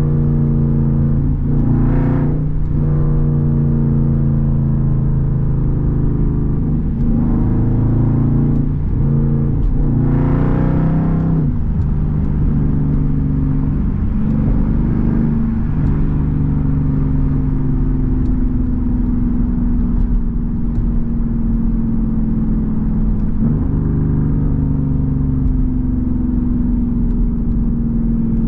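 Straight-piped Jeep Grand Cherokee SRT's HEMI V8 exhaust, heard from inside the cabin while driving. It holds a steady drone at cruise, with several brief pushes on the throttle where the note rises and falls, the strongest about two and ten seconds in.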